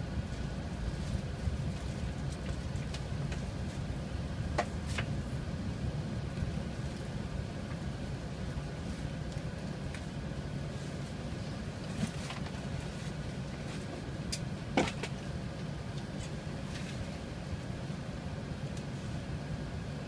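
Steady low rumble of an Airbus A380 cabin while the airliner taxis, engines and cabin air running, with a few short sharp clicks, the loudest near the end.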